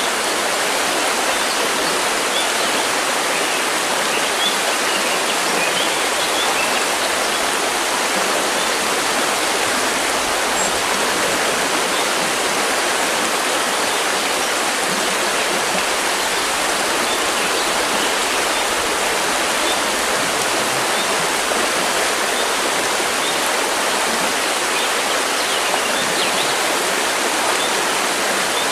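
River water rushing and splashing over rocks in a steady, even wash.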